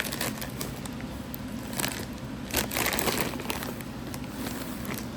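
Packaging rustling and crinkling with scattered light clicks as a boxed loudspeaker is handled and unpacked, busiest in the middle.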